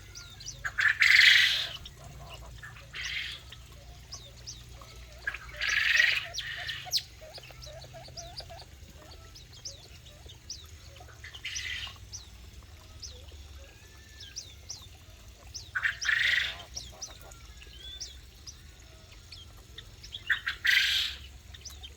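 Aviary birds calling: a loud, harsh squawk every few seconds over a steady scatter of small, high chirps.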